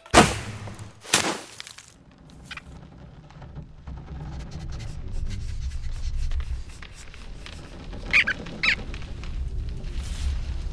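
Animated-film sound effects: a drawn bow released, with two sharp swishes about a second apart, then a low rumble that slowly builds, broken by two short squeaks a little after eight seconds.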